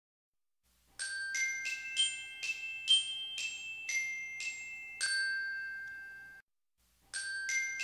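Short intro jingle of bright, bell-like struck notes, about two a second, the last one held and ringing out until it stops. The same jingle starts again near the end.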